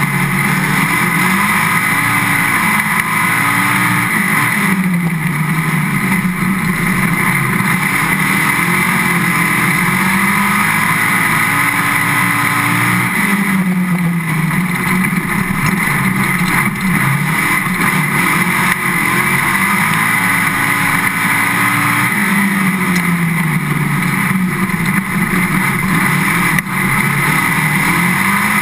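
A dirt-track race car's engine, heard from on board and loud throughout. Its pitch falls and climbs again several times as the driver lifts for the turns and gets back on the throttle out of them.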